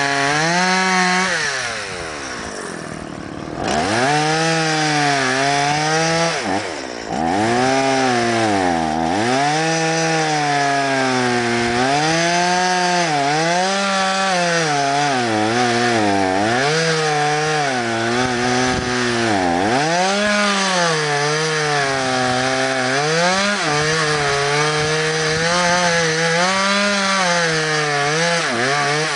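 Stihl MS 170 two-stroke chainsaw cutting through logs, its engine speed sagging under load and picking up again over and over as the chain bites. The throttle drops off briefly about two seconds in and again near the end.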